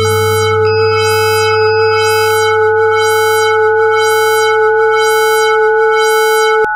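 Synthesizer music: a held electronic chord over a low bass note, with a regular pulsing sweep in the high notes. Two extra high tones come in briefly early on, and the whole chord cuts off suddenly near the end.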